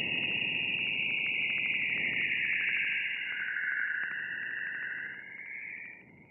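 Radio emissions from Jupiter's magnetosphere converted to sound: an eerie hissing band that slowly sinks in pitch, with rapid, even ticking under it, fading out near the end.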